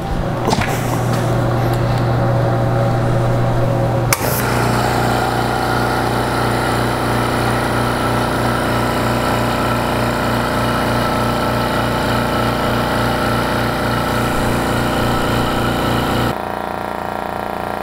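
Rolair JC10 air compressor running steadily under power, its motor and pump building pressure in the tanks now that a new check valve is fitted. A sharp click comes about four seconds in, and the sound is a little quieter for the last second and a half.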